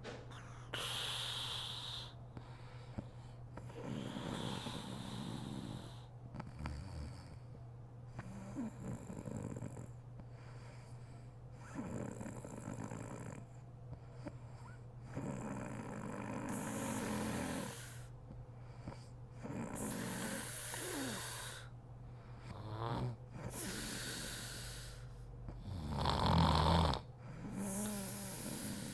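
A woman snoring in deep sleep: a string of heavy snores and breaths, one every two to three seconds or so, with the loudest snore near the end.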